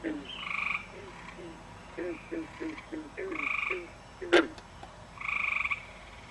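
Green frog calling in a marsh: a run of short, low, twangy croaks, with one loud, sharp note a little past four seconds in. A second, higher buzzing trill from another calling animal recurs four times, each about half a second long.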